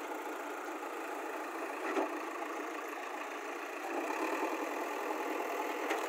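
JCB backhoe loader's diesel engine running at low revs as the machine moves slowly, with a single knock about two seconds in. The engine gets somewhat louder from about four seconds in.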